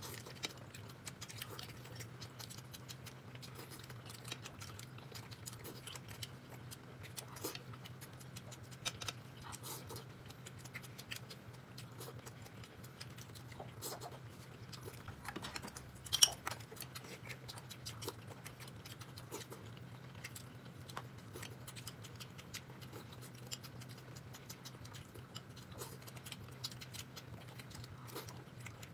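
Faint eating sounds: scattered small clicks and taps of food and tableware being handled, over a steady low hum, with one sharper click about sixteen seconds in.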